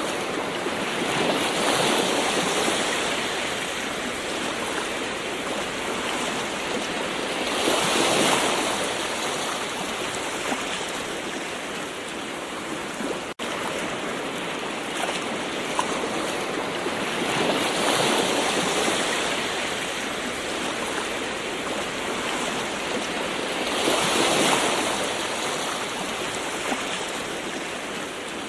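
Gentle ocean waves washing in as a steady hiss of surf, swelling louder every six to ten seconds. The sound cuts out for an instant about halfway through.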